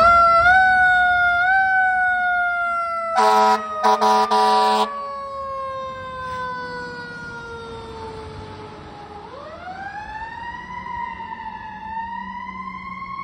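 Fire rescue truck's siren rising, then falling slowly in pitch for about nine seconds before winding back up, with three short air-horn blasts about three seconds in.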